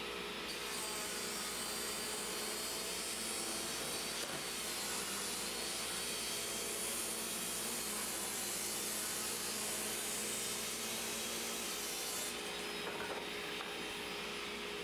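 Bosch 4100XC-10 table saw with a Milwaukee blade running with a steady whine while ripping a 2x4. The blade enters the wood about half a second in and cuts through until a couple of seconds before the end. It cuts freely, with no binding and no burning.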